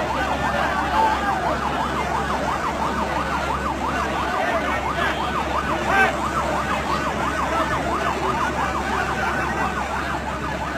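Emergency-vehicle siren in a fast yelp, its pitch rising and falling about four times a second, over the noise of a large crowd. A brief knock sounds about six seconds in.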